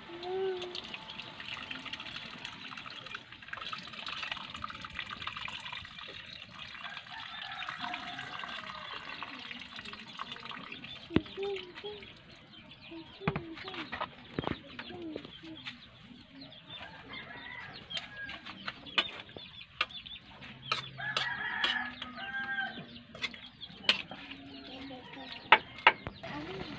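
Chickens clucking on and off, with coconut milk being poured into a wok in the first seconds as a hiss. Sharp clicks and pops come in the second half.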